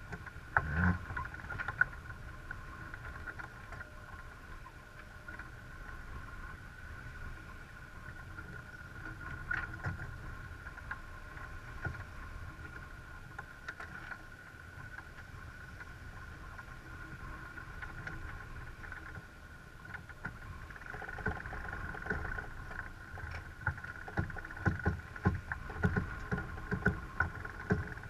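Wind and water rushing past a sailboat's hull under sail, with a faint steady high hum. A winch is cranked in two spells, briefly near the start and for about the last seven seconds, its ratchet giving a rapid, irregular run of sharp clicks.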